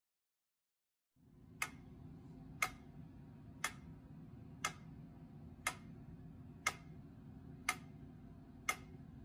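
Sharp, evenly spaced ticks, one a second, eight in all, like a clock or metronome keeping time, over a low steady hum that comes in about a second in after near silence.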